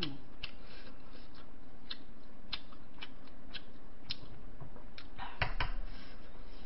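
Eating sounds: a string of short, sharp clicks at about two a second, with a louder cluster of knocks about five and a half seconds in.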